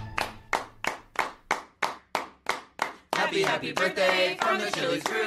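Sharp claps in a steady rhythm, about three a second, for about three seconds; then several people clapping together with voices over them.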